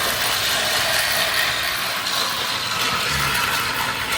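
Motorized Thomas & Friends toy train running on its track, the small motor and plastic gears giving a steady gear whir.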